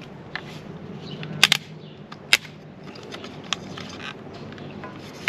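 Handling noises from a plastic solar panel and its cable: a few sharp clicks and knocks, two close together about a second and a half in and another a little later, over a faint steady low hum.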